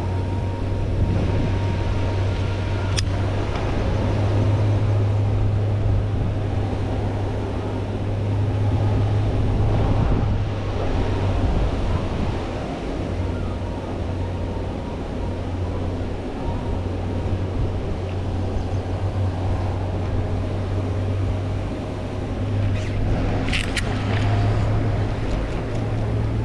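Steady low electric hum of a pond aerator's motor, with water splashing under it. A few brief clicks near the end.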